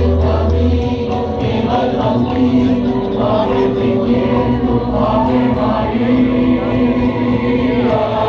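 A hymn sung by a choir in long held notes over accompaniment, with a deep bass note that stops about a second in.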